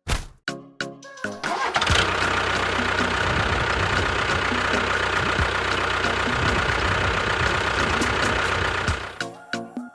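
A motor starts up about a second and a half in and runs steadily at a constant speed, then stops near the end; short musical notes come before and after it.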